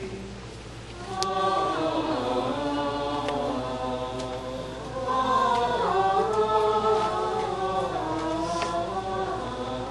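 A group of voices singing a slow chant together, holding long notes, coming in louder about a second in.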